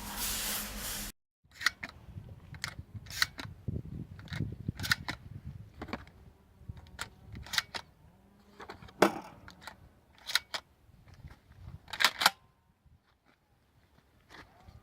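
Irregular sharp mechanical clicks and clacks of a shotgun being handled, a dozen or so spread over ten seconds, with the loudest pair near the end. A short hiss cuts off about a second in.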